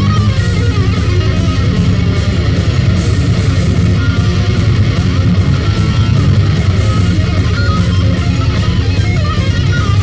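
Rock band demo tape recording playing, with electric guitar to the fore over bass and drums.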